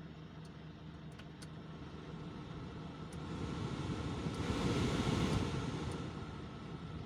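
Hyundai H100 diesel engine idling steadily after its injector repair, a sign that it is running right again. Midway a louder rush of a passing vehicle swells up and fades away over about three seconds.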